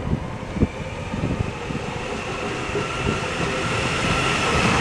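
Class 397 electric multiple unit approaching along the platform and passing close, its running noise growing steadily louder with a high whine that strengthens as the cab draws level.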